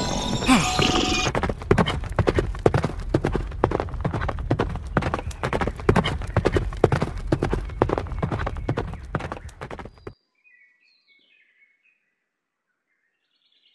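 Horse hooves clip-clopping at a quick run: a rapid, dense stream of hoof strikes that fades out about ten seconds in.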